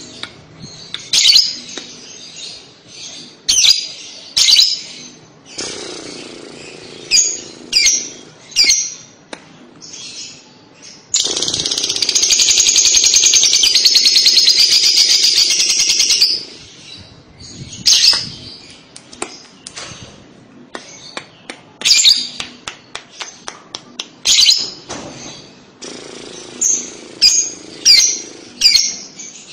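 Lovebird calling with sharp, high chirps, and about eleven seconds in a long, rapid chattering trill, the 'kekek' song, lasting about five seconds.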